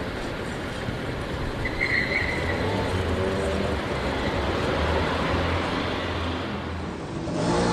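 Steady rumble and hiss of vehicle noise, with a brief high squeal about two seconds in. Near the end it gives way to a different, louder recording.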